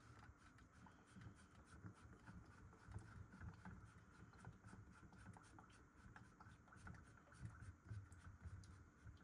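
Faint scratchy rubbing with many light clicks as hands turn a plastic reverse osmosis filter housing to unscrew it.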